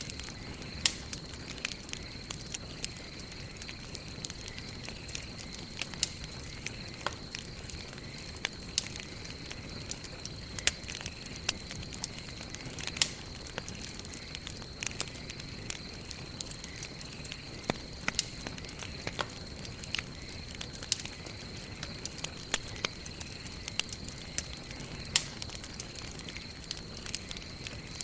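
Wood campfire burning, with irregular sharp crackles and pops over a steady low hiss of flames.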